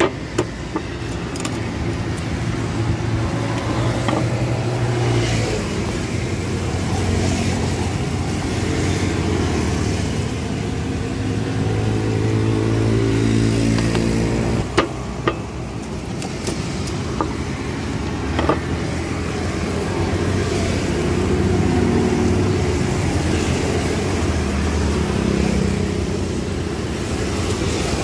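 Street traffic: motor vehicle engines running and passing, their hum rising and falling, with a few sharp clicks and knocks scattered through, one about fifteen seconds in.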